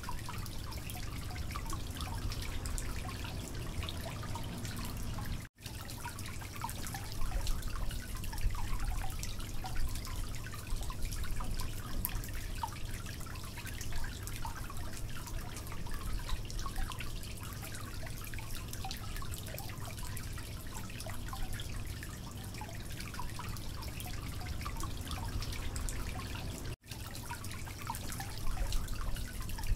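Thick mutton curry gravy bubbling and popping in a pot, with a wooden spatula stirring through it at times. The sound drops out for an instant twice.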